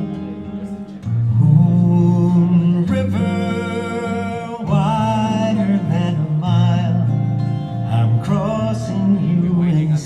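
Recorded music played back over a hi-fi loudspeaker system: acoustic guitar over a stepping bass line.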